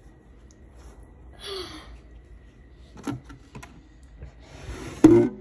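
Wooden dresser drawer being pulled open, sliding with a loud wood-on-wood scrape near the end, after a couple of small handling clicks and a short breath.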